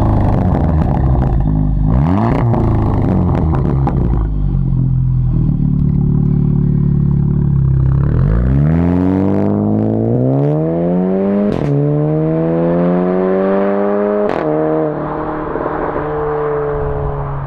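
Seat Leon Cupra 300 ST's turbocharged 2.0-litre four-cylinder through a 3.5-inch straight-pipe exhaust with its valve open. There are two quick throttle blips with crackling pops, then a steady idle. About halfway through a long climb in revs lasts some six seconds, with two sharp cracks, before the note levels off and eases.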